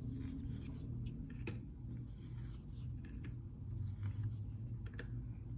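Soft rustling and light taps of tarot cards being handled and slid on a table, over a low steady hum.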